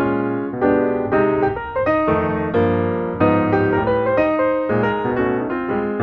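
Background piano music: struck notes and chords played at a moderate pace.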